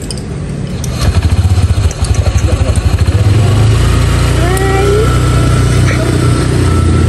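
Small motor scooter engine running close by, its low rumble pulsing at first and then growing steadier and louder as the scooter pulls away.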